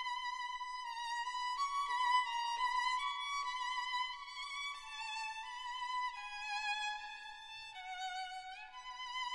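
Background music: a slow solo violin melody with vibrato, one note at a time, gliding up into a note near the end.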